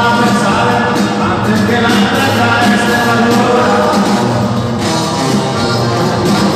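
Live band music with a sung vocal line, loud and continuous.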